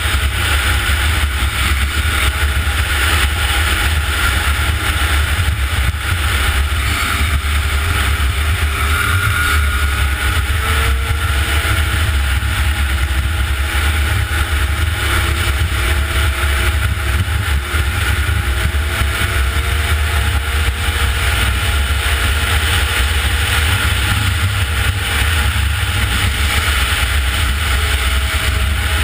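Snowmobile engine running steadily at speed, its pitch drifting slightly up and down, under a heavy low rumble of wind on the microphone.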